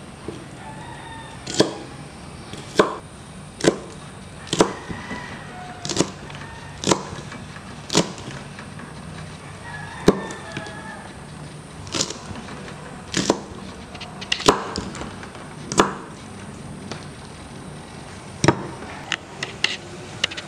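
Kitchen knife slicing red onion and green chilies on a thick wooden chopping board, each cut ending in a sharp knock of the blade on the wood. The knocks come at uneven intervals of about a second, a few closer together near the end.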